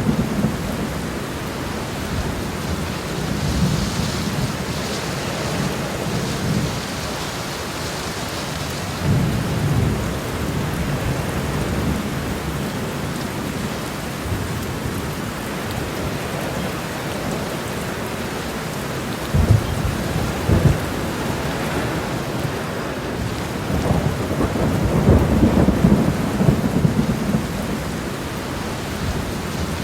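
Very heavy rain pouring steadily onto a road, a dense, even hiss. Deeper swells come about a third of the way in and twice more in the second half, with two short low thumps near the middle.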